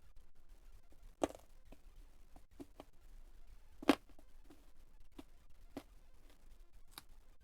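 Eating sounds: a string of short, sharp crunches and clicks, the two loudest about a second in and about four seconds in, from chewing crackers and fried chicken and utensils touching the plate.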